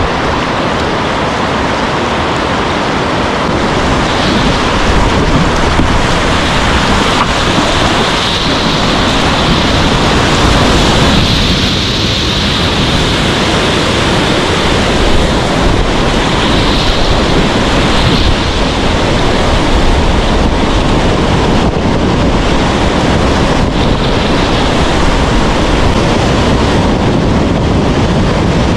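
Whitewater of a river rapid rushing steadily and loudly around a kayak, with wind buffeting the microphone.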